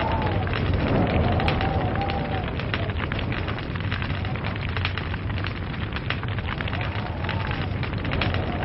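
Log fire crackling steadily, with dense small pops and snaps. A faint tone swells and fades about a second in and again near the end.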